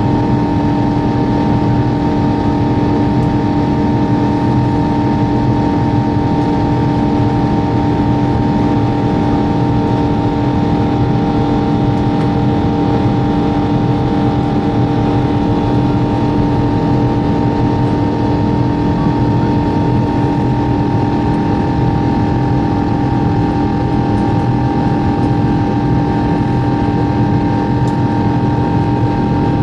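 Twin-engine jet airliner's turbofan engines running at steady high thrust during takeoff and climb. It is a constant loud rumble with a steady hum of several fixed tones that does not change in pitch or level.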